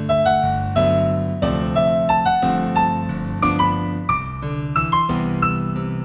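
Solo piano playing a gentle New Age instrumental in G major: a single-note melody, about three notes a second, climbing steadily higher over held low chords.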